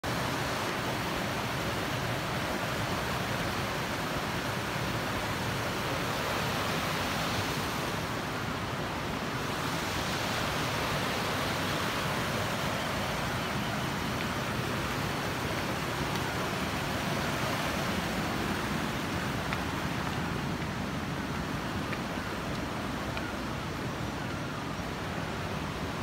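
A mountain stream rushing over boulders and stones: a steady, even rush of water.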